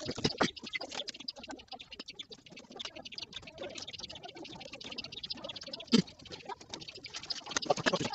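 Rapid, irregular small clicks and taps of a flat ribbon cable and screwdriver being handled against a TV panel's metal back and its small circuit board, with one louder knock about six seconds in.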